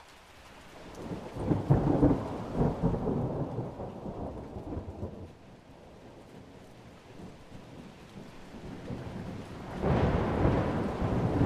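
Low, storm-like rumbling over a steady hiss, swelling about two seconds in and again near the end.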